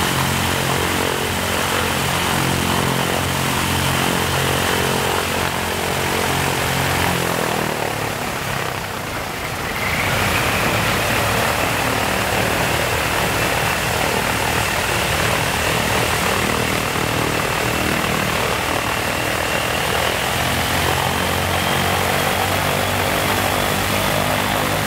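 Ilyushin Il-14T's Shvetsov ASh-82T fourteen-cylinder radial engine running on the ground after start-up, its propeller turning. The sound weakens briefly about eight seconds in, then comes back with a note that rises slowly as the engine speed creeps up.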